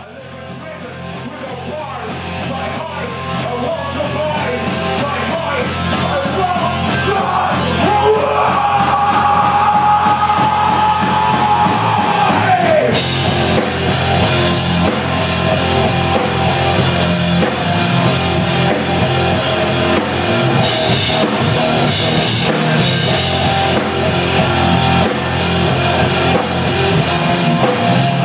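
Alternative metal band playing live: distorted electric guitar over a steady drum beat. The music fades in over the first several seconds, a long held note bends down and breaks off about halfway, and then the full band comes in louder and brighter.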